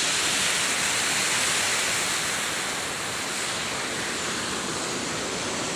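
A shallow, rocky river rushing over stones in small rapids: a steady, even sound of flowing water.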